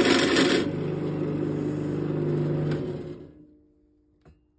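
Wood lathe turning a wooden fishing-rod grip blank: a turning tool cuts the spinning wood with a coarse scraping hiss for the first moment, then only the lathe's motor hum is left. About three seconds in the lathe is switched off and winds down to quiet, with one light click near the end.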